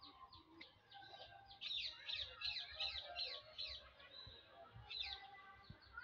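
Small birds chirping: short, high, falling chirps, with a louder quick run of about four a second starting a little under two seconds in, and a few more near the end.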